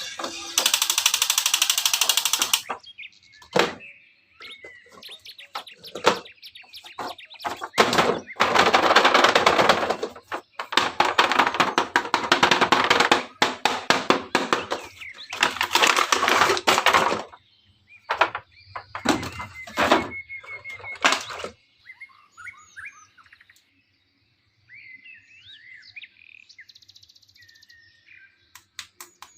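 For about twenty seconds, loud bursts of rustling and crackling with sharp clicks and knocks, like things being handled. It then stops suddenly, leaving birds chirping faintly in the background.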